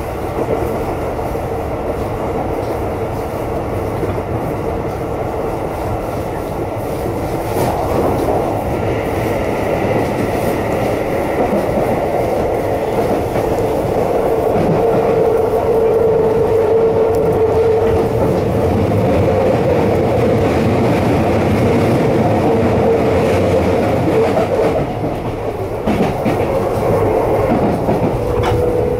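Keisei electric train running at speed, heard from inside the car: the traction motors growl with a steady tone over the rumble and clatter of the wheels on the rails. The motor tone grows stronger about halfway through.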